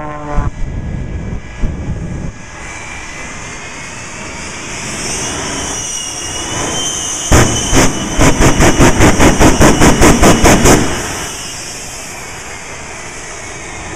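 Shockwave jet truck's jet engines running with a wavering high whine, then its flame poppers firing a rapid, even string of loud bangs, about four a second for some three seconds, as fire shoots from the stacks.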